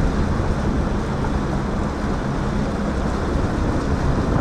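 Boat motor running steadily under way, a low drone with wind buffeting the microphone.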